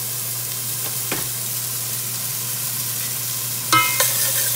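Diced onions sizzling in hot oil in a stainless steel pot. About three and a half seconds in, a spoon stirs them, scraping and clinking against the pot.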